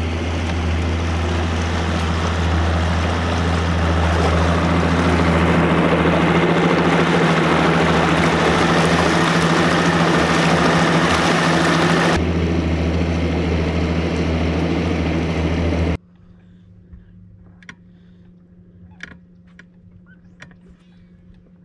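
Evinrude 250 V6 two-stroke outboard motor running steadily as the bass boat moves through the water. It cuts off abruptly about sixteen seconds in, leaving a quiet background with a few faint clicks.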